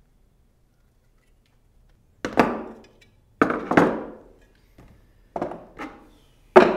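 A series of about six sharp knocks and clunks, starting about two seconds in, as hand tools and a bicycle crankset with its chainrings are handled and set down on a workbench. Each knock dies away quickly, and the loudest comes near the end.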